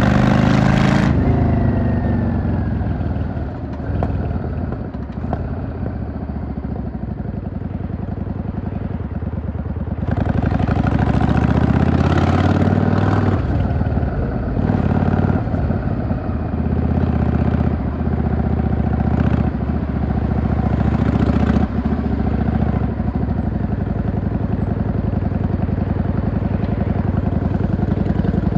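Yamaha V-Star 650 bobber's V-twin engine running during city riding. The revs drop sharply about a second in and it runs quieter for several seconds, then picks up again with a series of accelerations before settling into steadier running near the end.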